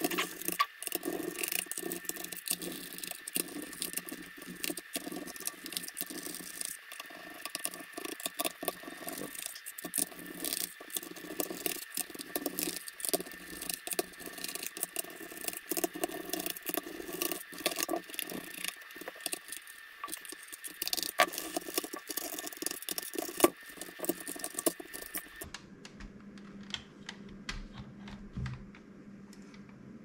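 Rapid small clicks and scrapes of a hand screwdriver turning screws out of a plastic toy blaster shell, with the plastic parts rattling as they are handled. The clatter cuts off suddenly about 25 seconds in, leaving faint scattered ticks.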